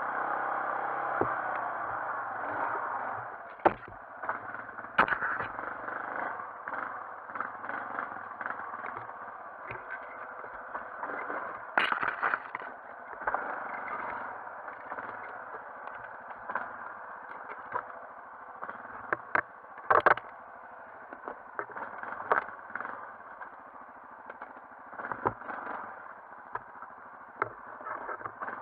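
Yamaha Grizzly 450 ATV's single-cylinder four-stroke engine running at low speed while crawling through brush, with repeated sharp knocks and cracks from branches and rough ground hitting the machine, the loudest about twenty seconds in.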